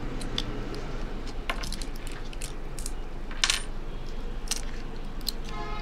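A series of small, sharp metallic clicks and taps from handling an opened iPhone 6 Plus and its board connectors with tools, the loudest about three and a half seconds in, over a low steady hum.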